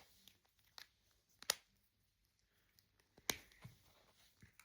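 Plastic toy figure parts being handled and snapped together: two sharp clicks, about a second and a half and three seconds in, with a few faint ticks around them.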